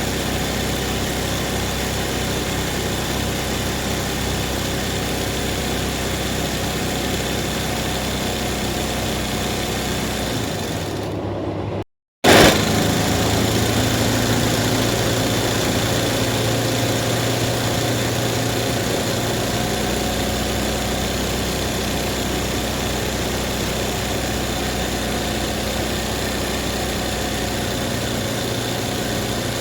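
Embroidery machine running steadily with a constant mechanical hum. The sound breaks off completely for a moment about twelve seconds in and resumes a little louder.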